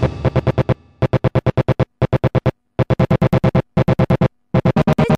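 Acid techno track in a stuttering break: the full mix fades out early on, then rapid chopped stabs come in, about nine a second, broken by several short silent gaps.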